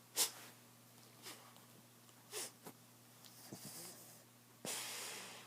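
Snoring: several short snorts, then a longer breathy exhale about four seconds in that fades away.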